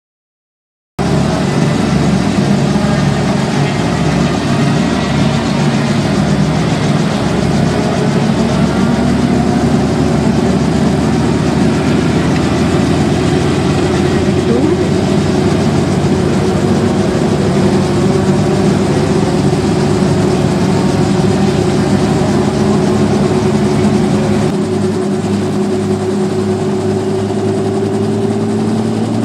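A light two-bladed helicopter running close by, its engine and turning rotor making a loud, steady drone that starts abruptly about a second in. A few seconds before the end the low part of the sound shifts and eases slightly, and a rising tone comes in as the helicopter lifts off into a low hover.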